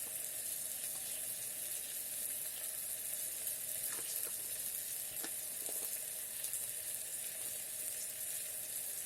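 Vegetables and onions sizzling in the hot base of an electric kettle: a steady frying hiss, with a few faint clicks in the middle.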